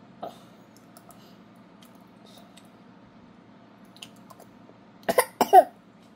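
Toddler eating rice soup with a metal spoon from a stainless steel bowl: faint small clicks and mouth sounds, then two loud, short eating noises about five seconds in, half a second apart.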